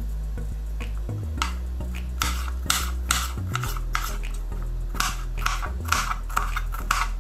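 Chef's knife chopping a red bell pepper on a plastic cutting board: a run of sharp knocks of the blade on the board, about three a second, starting about a second and a half in.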